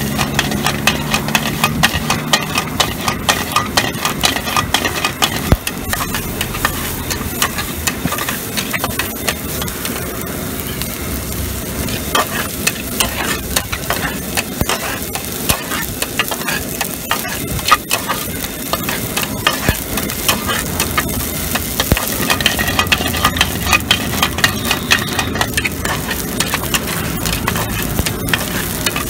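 A long flat metal spatula repeatedly scrapes and strikes a metal frying pan as chicken and chopped vegetables are stir-fried, over a steady sizzle of frying oil.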